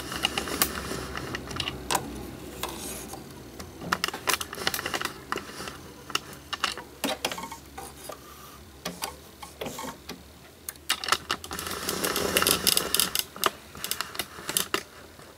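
Irregular light clicks and rubbing from hands handling a domestic sewing machine as two threads are drawn together through its thread guides, with a busier stretch of scraping about three-quarters of the way through.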